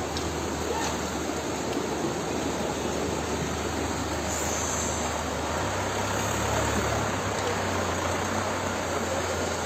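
Fast-flowing muddy floodwater rushing through a street, a steady wash of noise with no breaks.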